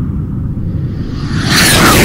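Channel-intro sound design: a deep, steady rumble with a loud whoosh sweeping in about one and a half seconds in, its pitch falling.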